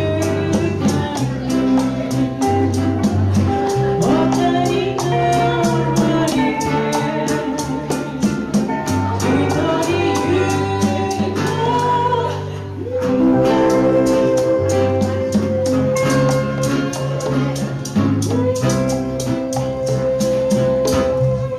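Small live Hawaiian-style band: a woman singing into a microphone over steel guitar, guitar, congas and maracas, the maracas keeping a fast, even shaken rhythm. The music drops briefly about twelve seconds in, then picks up again.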